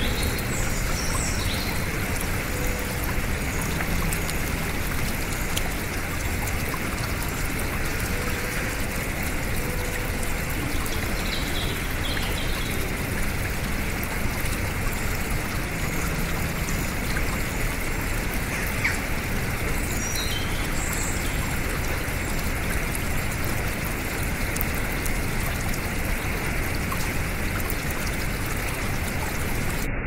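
Shallow rocky stream running over small cascades: a steady, even rush of water. A few faint bird chirps come through it now and then.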